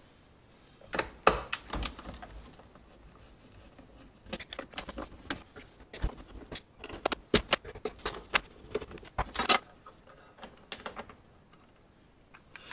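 Irregular clicks, taps and light rattles of plastic parts as a Mercedes W126 instrument cluster is taken apart by hand and its speedometer unit lifted out of the housing.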